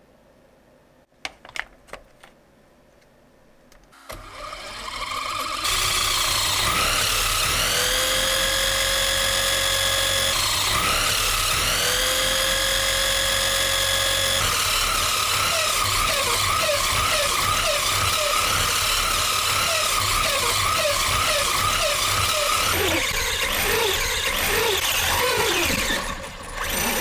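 Brushless electric motor and drivetrain of a large RC car whining with its wheels spinning free off the ground, rising twice to a high steady pitch and then running at high speed, near 65,000 rpm. A few clicks come just before it starts.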